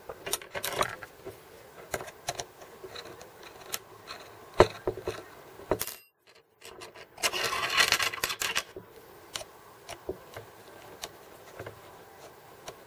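Small metal clicks, taps and scraping as an M3 bolt, nut and ball joint are worked together by hand on a 3D printer's plastic effector. A little past the middle a couple of seconds of denser scraping stand out, just after a brief drop to near silence.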